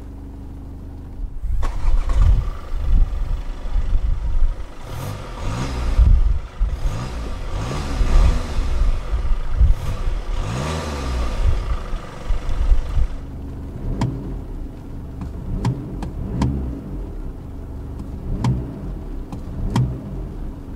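Skoda Superb's 2.0 TDI four-cylinder turbodiesel starting about a second and a half in, then revved at standstill in a series of rises and falls in engine pitch. In the second half the revs are shorter blips, mixed with several sharp clicks.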